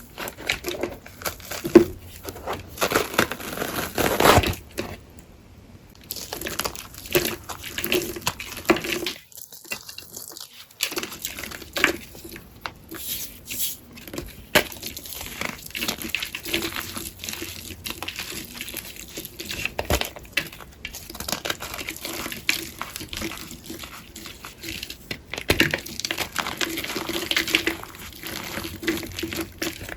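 Gym chalk paste on a sponge being pressed and squeezed, giving wet, crunchy crackling and squishing in irregular bursts, with a short break about nine seconds in.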